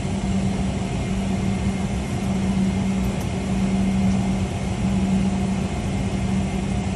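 Steady cabin hum inside a Boeing 777-300ER during pushback, before its engines are started, with a constant low tone running through it.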